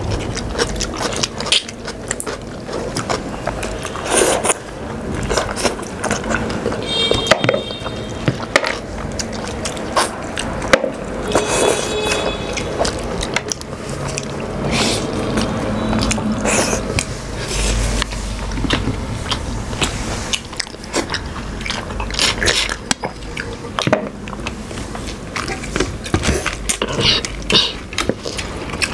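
A person eating nehari close by: chewing and biting on soft-boiled meat and bone, with many irregular wet smacks and clicks.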